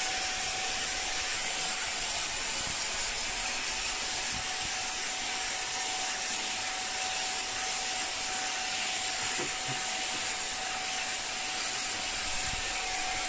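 Vacuum cleaner running steadily, an even hiss with a constant whine, its brush nozzle being worked over a cat's fur.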